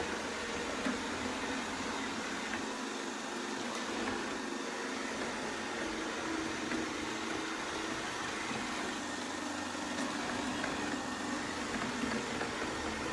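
Shark ION R75 robot vacuum running: a steady motor hum with an even rush of air.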